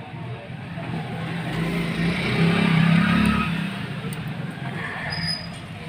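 A motor vehicle passing by, its engine sound building to a peak about three seconds in and then fading.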